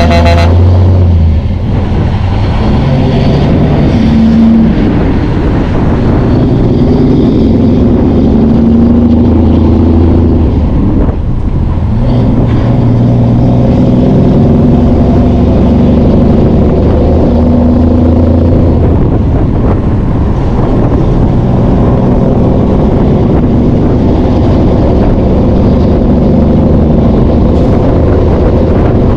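Large diesel engine running under load, its pitch rising and falling in steps every few seconds.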